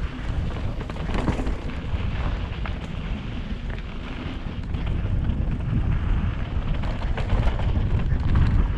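Wind buffeting the microphone of a camera on a mountain bike riding downhill, a steady rumble, mixed with the crackle and rattle of the bike rolling over a dirt trail.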